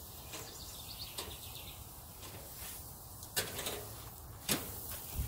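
Low steady background rumble with three sharp knocks or clinks in the second half, each a few tenths of a second to a second apart.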